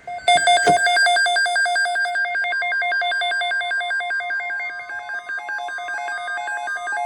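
Loud electronic emergency alert tone, starting suddenly and warbling rapidly between a lower and a higher pitch, with a steady tone joining in about two and a half seconds in: the alarm that precedes a weather-radio tornado watch message.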